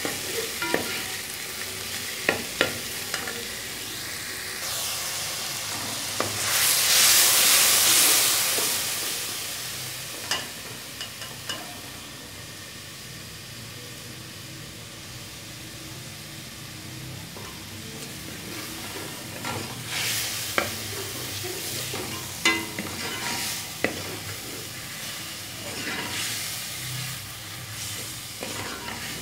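Sliced onions and cumin seeds frying in oil in a metal pot, sizzling steadily, with a spoon stirring and clicking against the pot. About seven seconds in, a louder hissing rush lasts two or three seconds.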